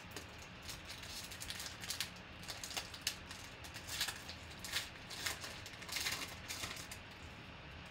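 Wrapper of a Panini Prizm football card pack crinkling and tearing as it is ripped open by hand: an irregular run of sharp crackles that dies away about seven seconds in.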